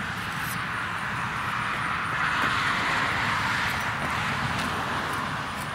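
Passing road traffic: a steady rush of vehicle noise that swells about two to three seconds in and then fades again.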